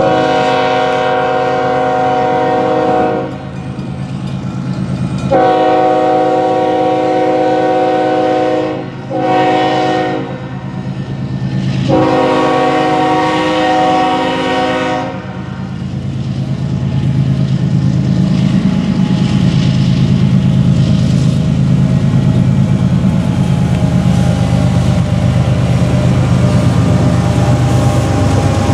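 BNSF ES44C4 locomotive's Nathan K5HLL five-chime air horn sounding the grade-crossing signal: two long blasts, one short and one long. After that the locomotive's diesel engine, working hard on the empty coal train, rumbles steadily and grows louder as it passes close by.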